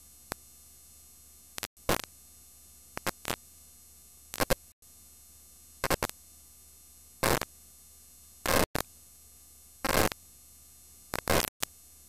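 Blank videotape playing back: a steady low hum with short bursts of static hiss, irregularly spaced, coming every second or so.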